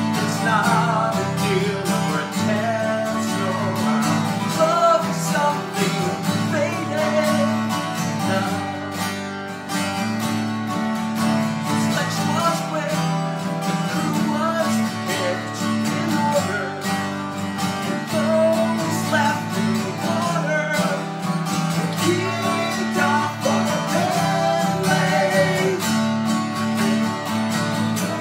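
Two acoustic guitars, a Jasmine and a Taylor Builder's Edition 324ce, strummed together, with a man singing the melody over them.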